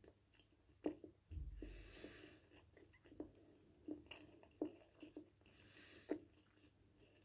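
Close-up mouth sounds of a person chewing toast topped with poultry sausage with the mouth closed: soft wet smacks and clicks every half second or so, with two longer soft hisses, about a second and a half in and again near the end.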